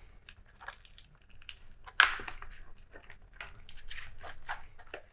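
Cardboard packaging being opened and handled: scattered scrapes and rustles, with a sharper crack about two seconds in.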